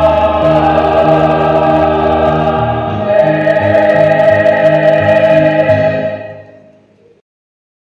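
Mixed church choir singing a hymn in parts, holding long chords at its close. The sound fades away from about six seconds in and is gone about a second later.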